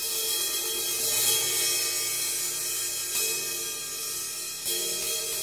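An 18-inch K Zildjian Dark Crash Medium Thin cymbal, fitted with a single rivet, struck with a drumstick several times. Each hit rings on into a long, bright wash.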